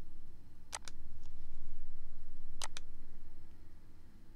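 Two computer mouse clicks about two seconds apart, each a quick press-and-release pair, over a low steady background rumble.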